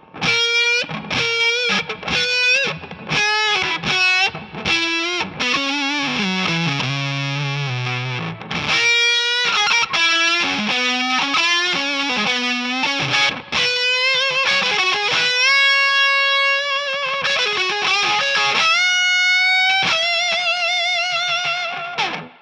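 Electric guitar through an O.C.E. Hammer fuzz pedal, a Big Muff-style heavy fuzz, playing a melodic lead: quick picked notes with bends and slides at first, then long sustained singing notes with vibrato in the second half.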